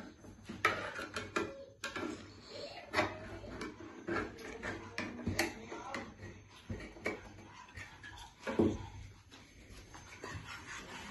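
A tin can being opened with a kitchen knife: a run of irregular metal knocks, clicks and scrapes as the blade is struck into and pried around the lid. A brief pitched cry-like sound comes about eight seconds in.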